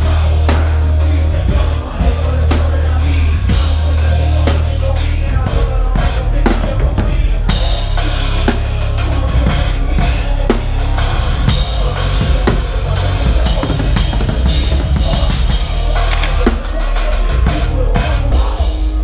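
Loud band music dominated by a drum kit: bass drum, snare and cymbal hits over a heavy, steady bass.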